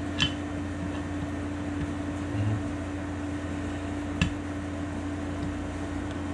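Steady low hum in the shop, with two short metallic clicks, about a quarter second in and again about four seconds in, as the oil pump's parts are handled and seated in the pump housing.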